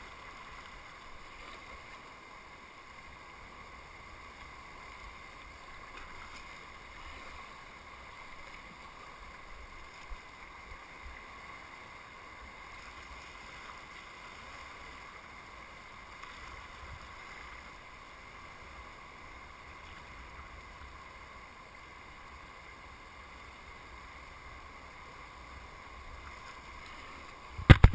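Steady rush of whitewater around a kayak on a river wave. In the last moment, a few loud sharp knocks.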